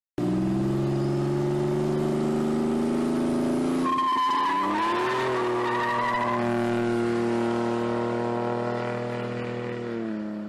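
Car engine held at high revs, its pitch creeping up, with a tire squeal about four seconds in. The engine then holds steady and winds down, fading near the end.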